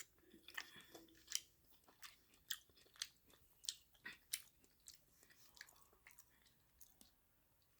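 Faint close-up mouth sounds of someone eating noodle soup: wet chewing with sharp lip smacks that come irregularly, about one or two a second.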